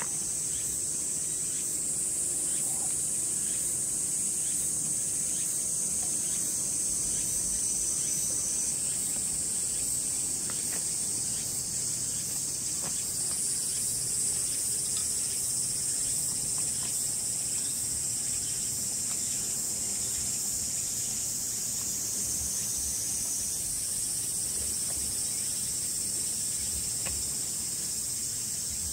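A chorus of cicadas singing, a steady high shrill that shifts in pitch several times as singers join in and drop out.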